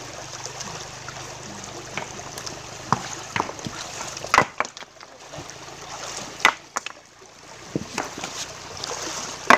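Shallow stream running over rocks, with stones knocking against one another several times as rocks are lifted and set down by hand to build a small diversion dam; the loudest knock comes about four and a half seconds in.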